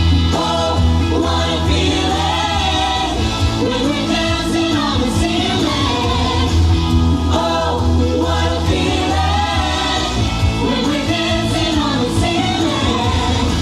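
Loud pop music with singing over a steady bass line.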